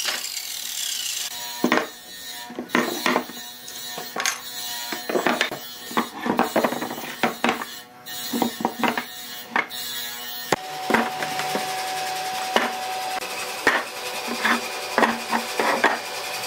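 Wood being worked by hand: a run of irregular scraping and knocking strokes on wood, with steadier rubbing in the second half.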